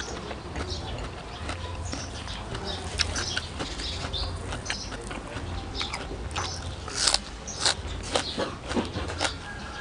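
Close-miked eating sounds of biting into and chewing raw greens such as fresh dill, with a scatter of sharp, crisp clicks and mouth smacks over a steady low hum.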